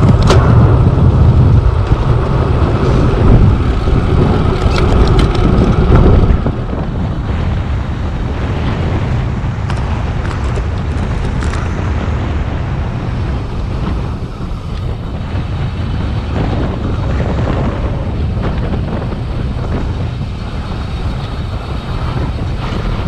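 Wind rushing and buffeting over a bike-mounted action camera's microphone while descending a mountain road at speed. Loud for about six seconds, then it drops suddenly to a lower, steady rush.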